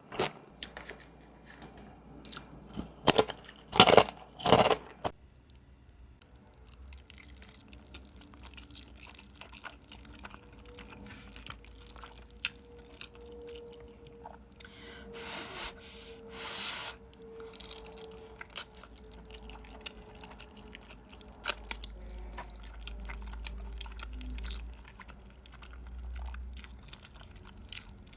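A person eating up close to the microphone: a few loud crunching bites in the first five seconds, then quieter chewing with scattered small clicks and smacks, and two short louder rushes of noise about halfway through.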